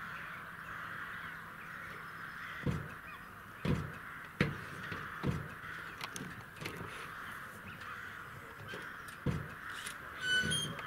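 Crows cawing in the open air, with a few low knocks and thumps scattered through, and a short high-pitched call near the end.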